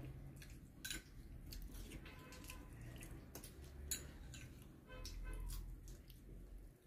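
Faint eating sounds: a spoon scraping and clicking against a bowl, with chewing. There are a few small, separate clicks.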